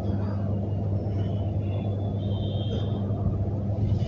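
A steady low hum over a rumbling noise bed, with a faint higher tone about two seconds in.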